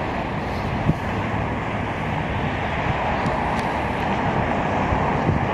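Diesel-electric freight locomotive approaching, a steady rumble of engine and train noise, with wind buffeting the microphone.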